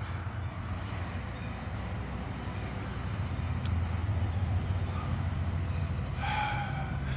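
Road traffic going by, with a pickup truck's engine giving a steady low rumble as it passes. Near the end there is a brief high whine with a slightly falling pitch.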